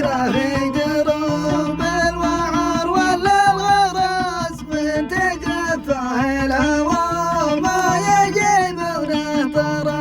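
Arabic song: a man singing a melismatic melody over a plucked-string accompaniment with low held bass notes.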